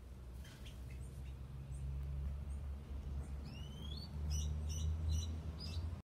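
Small birds calling: a few short high notes, then rising whistles about three and a half seconds in, followed by a quick run of short chirps. A steady low rumble sits underneath.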